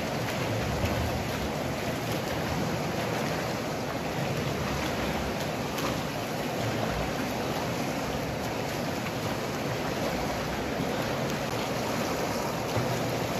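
Steady water noise of swimmers splashing along a pool doing one-arm freestyle, arms entering the water and legs kicking.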